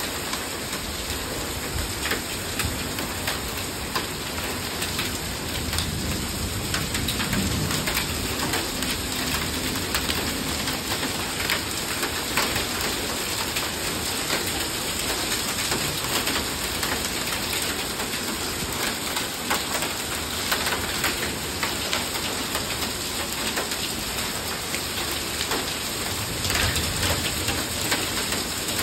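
Heavy thunderstorm rain pouring down, with many sharp drop impacts. Low thunder rumbles about six seconds in and again near the end.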